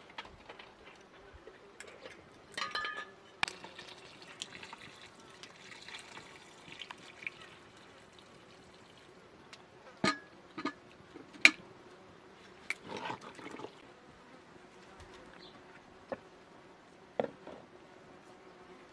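Metal cooking pots being handled at a wood-fired stone hearth: scattered clinks and knocks, the loudest a few in quick succession about ten to eleven seconds in, with a stretch of soft splashing or pouring water.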